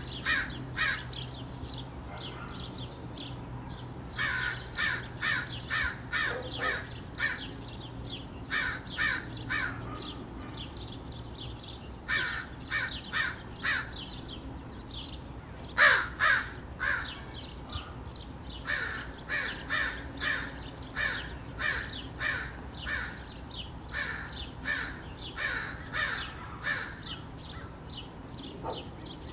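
Crows cawing in runs of harsh repeated calls, about two a second, with the loudest call about sixteen seconds in: alarm and mobbing calls raised at a gray fox close by.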